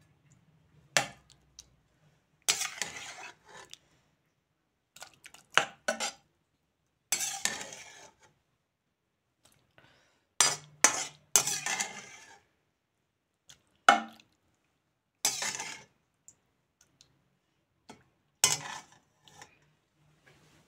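A slotted spatula scraping and clanking against a frying pan and an aluminium saucepan as cooked mutton is spooned from one into the other: a dozen or so separate sharp knocks and short scrapes with pauses between.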